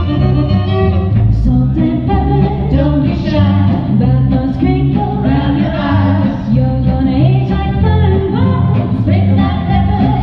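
Acoustic swing band playing live, with upright bass, accordion, acoustic guitars and fiddle under singing.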